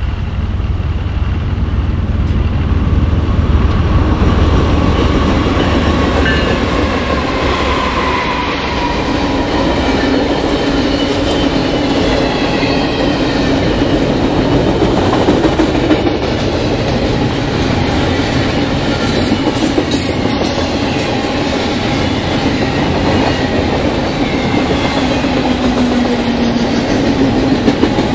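BNSF double-stack intermodal freight train passing close by at speed. A heavy low diesel-locomotive drone dominates the first several seconds and then eases, and after that the container cars roll past with a steady clickety-clack of wheels over the rail joints.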